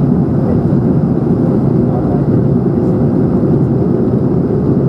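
Steady cabin noise inside an Airbus A220-100 in flight on descent. Its Pratt & Whitney PW1500G geared turbofans and the airflow make a dense, even rumble, heard from a window seat over the wing, with a faint steady hum running through it.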